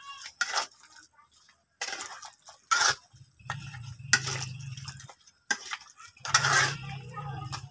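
Metal spatula scraping and clinking against a wok as pork liver is stirred into a stewing pork and vegetable dish, in several separate strokes.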